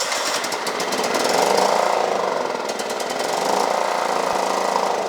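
1992 John Deere STX-38 mower's 12.5 hp Kohler Command single-cylinder engine running just after starting, louder twice, about a second and a half in and again near the end. The carburetor has issues: the engine only runs with gas poured down the carburetor throat.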